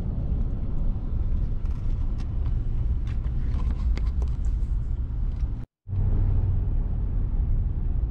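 Low, steady rumble of a vehicle driving down the road, with a few faint clicks; the sound cuts out for a moment about six seconds in.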